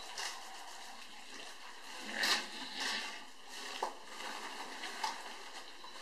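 African bush elephants drinking at close range: water splashing and sloshing as trunks draw up water and squirt it into mouths, with short splashy bursts, the loudest about two and three seconds in.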